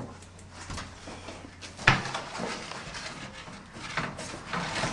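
Wooden peel and tools knocking and scraping at the mouth of a brick bread oven, with one sharp knock about two seconds in and lighter knocks at the start and near the end.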